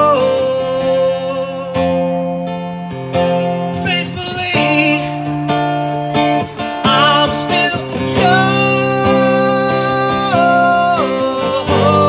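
Acoustic guitar strummed steadily, with a melody held over it in long notes that slide from one pitch to the next.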